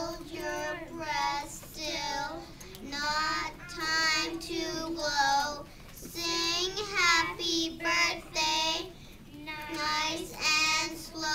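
Young girls singing into a microphone, phrase after phrase, with steadily held notes.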